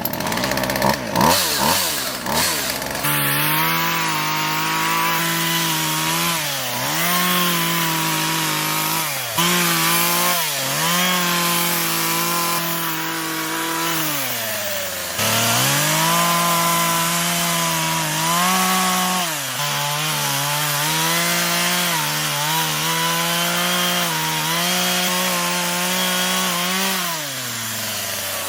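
Gas chainsaw running at high revs while cutting wood, its engine note sagging several times as the chain bogs in the cut and picking back up, then dropping toward idle near the end.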